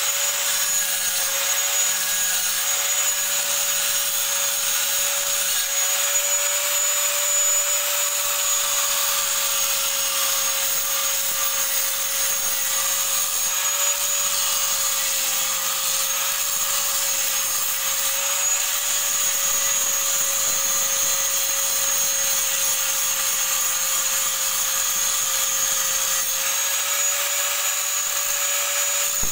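Electric angle grinder running continuously with its disc grinding along the surface of a metal bar: a steady motor whine over a harsh grinding hiss, the pitch wavering slightly as the disc is pressed into the metal.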